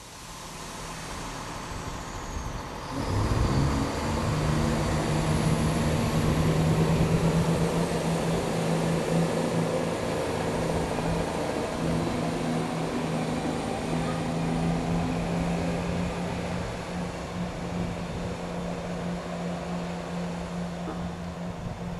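A pair of British Rail Class 47 diesel locomotives, each with a Sulzer twelve-cylinder engine, working flat out at the head and tail of a passenger train as they start the steep climb of the Lickey Incline. The sound swells over the first few seconds. The deep, steady engine note comes in strongly about three seconds in and holds.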